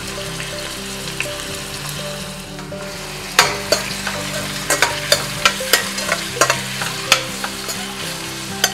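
Sliced onions sizzling in hot oil in a stainless steel pot. From about three seconds in, a metal slotted spoon stirs them, clinking and scraping against the pot about a dozen times.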